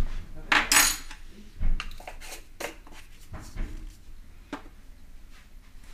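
Kitchen utensils and containers handled on a countertop: a loud scrape or rustle about half a second in, a knock near two seconds, then scattered light clicks and taps.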